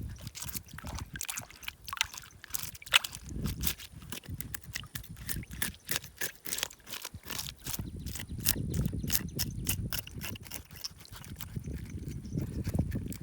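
Freshly caught tilapia being washed and cleaned by hand: a fast run of short clicks and scrapes with trickling, dripping water.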